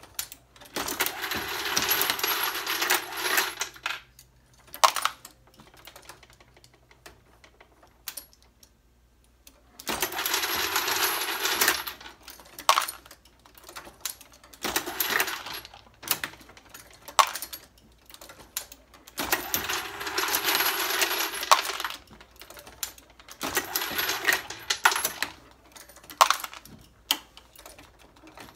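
Brass 9mm cases and bullets rattling and clinking on a Hornady Lock-N-Load AP progressive press during reloading. There are four spells of metallic rattling, each two to three seconds long, with sharp metallic clicks between them.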